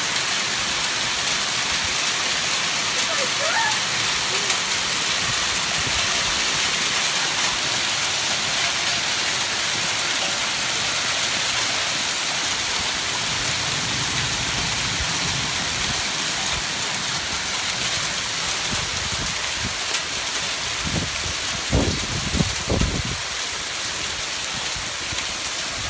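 Small hail mixed with rain falling steadily on a swimming pool and its concrete deck: an even, dense patter and hiss of pellets striking water and pavement. A few low thumps come near the end.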